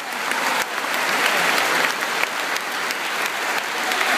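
A church congregation applauding, many hands clapping in a steady, dense patter.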